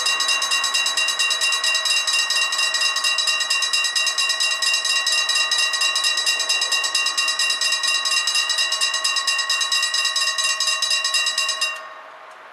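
Railway level-crossing warning bells ringing rapidly and steadily, warning that a train is approaching, while the barriers come down. The ringing cuts off suddenly near the end as the booms reach the closed position.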